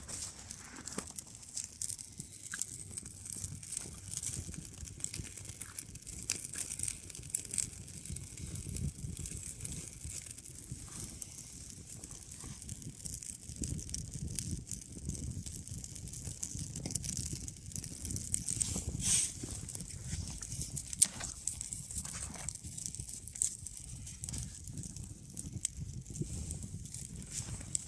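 Scattered rustling with small crackles and clicks over a faint low rumble, with a few sharper ticks now and then.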